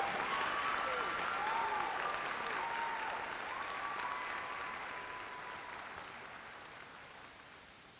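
Theatre audience applauding, with cheering voices over it in the first half; the applause dies away steadily toward the end.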